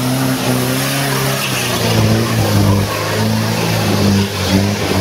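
A vehicle engine running, its revs shifting up and down.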